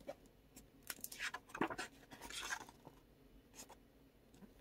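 Faint handling of a hardcover bound comic volume being opened and its pages leafed through: a string of soft taps and paper rustles, with a longer rustle about two and a half seconds in, then quieter.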